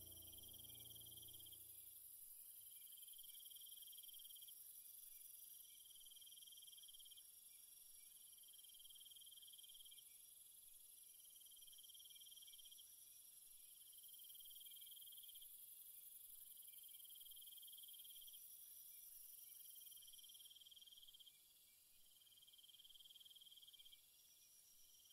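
Faint insect trilling: a high trill of about a second and a half repeats every two seconds or so, over a steadier high buzz of more insects.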